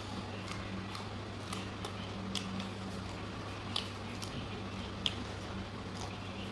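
A person chewing beef curry close to the microphone: scattered wet mouth clicks and smacks, a few sharper ones about 2.5, 4 and 5 seconds in, over a steady low hum.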